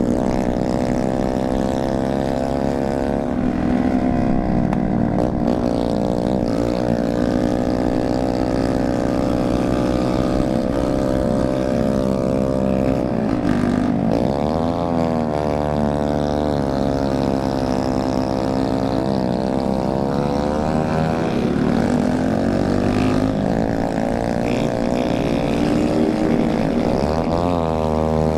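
Small motorcycle engines running at road speed, a steady buzzing drone whose pitch drops and climbs back again about halfway through, again a few seconds later and near the end, as the throttle is eased and reopened.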